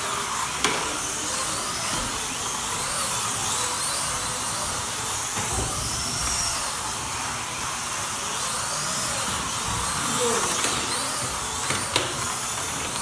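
Several electric slot car motors whining around the track, their pitch rising and falling over and over as the cars speed up on the straights and slow for the corners. A sharp click about half a second in and another near the end.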